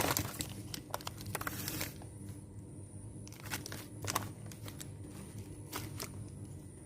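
Plastic snack packet crinkling and rustling as it is handled, dense for about the first two seconds, then a few separate short rustles over a steady low hum.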